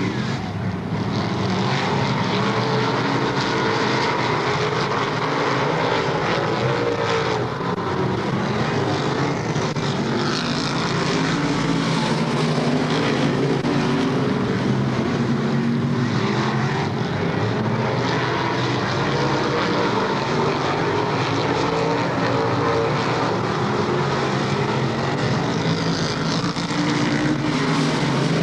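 A field of dirt modified race cars racing on a dirt oval, their V8 engines blending into a continuous loud drone whose pitch keeps rising and falling as the cars go around.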